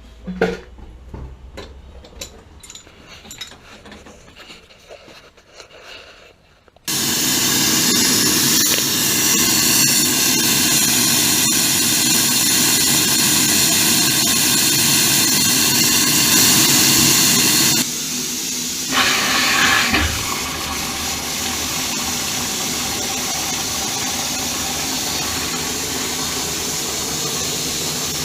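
A few faint knocks at first. About seven seconds in, water suddenly starts running hard and steady through the water heater's plumbing, with a brief change in the flow about two-thirds of the way through.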